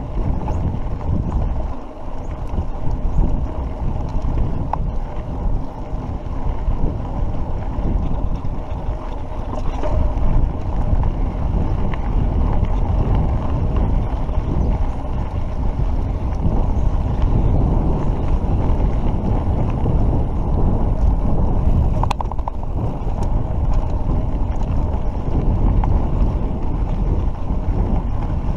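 Wind buffeting the microphone of a handlebar-mounted action camera, mixed with the tyres and frame of a mountain bike rolling and rattling over a rough dirt road: a steady, loud, low noise.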